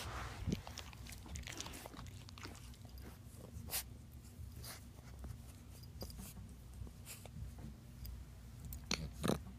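Pit bull puppy play-biting and mouthing another dog: scattered light clicks and snaps of teeth and jaws among rustling fur and bedding. Louder snaps come about half a second in and near the end, over a steady low hum.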